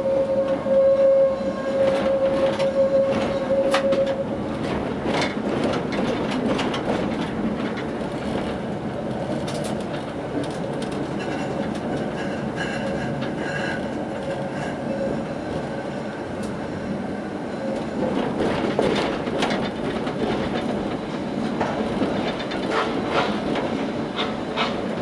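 Tatra T6A5 tram running on street track: a steady high tone, typical of wheel squeal through a curve, for the first four seconds, then a rolling rumble with scattered clicks and knocks as the wheels cross points and rail joints.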